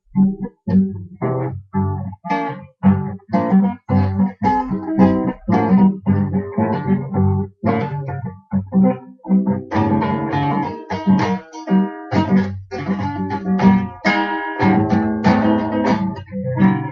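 Guitar strummed with the fingers, no pick: a quick, steady run of strummed chords.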